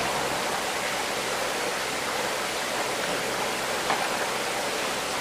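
Steady rushing noise like running water, with a faint single click about four seconds in as a can lid is worked open.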